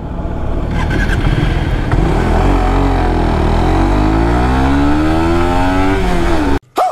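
Motorcycle engine accelerating, its pitch rising steadily as it speeds up, then cutting off suddenly near the end.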